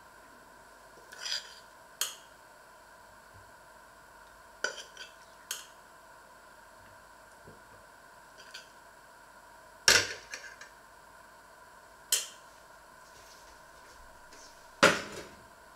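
Metal spoon clinking and scraping against a steel saucepan and a china plate while rice is served, in separate sharp clinks every second or two, the loudest about ten seconds in and near the end.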